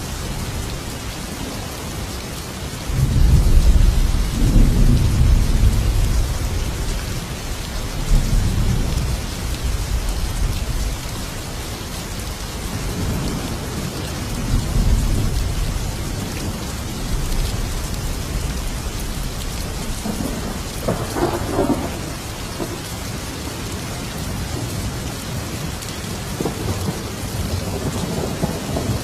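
Steady heavy rain with rolling thunder: a long loud rumble of thunder begins about three seconds in and fades over several seconds, followed by fainter rumbles later on.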